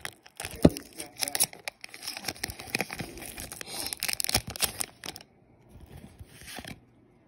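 Foil booster-pack wrapper crinkling and tearing open, with dense crackling for about five seconds and a sharp crack a little under a second in. It is followed by softer rustling as the cards are slid out.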